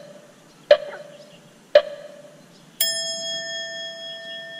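Two short metallic dings about a second apart, then a louder bell-like chime about three seconds in that rings on with several clear tones and slowly fades.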